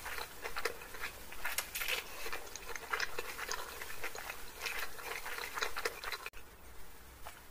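Close-up mouth sounds of eating chow mein noodles: a steady run of small wet clicks and smacks from chewing and slurping, which drops off abruptly about six seconds in.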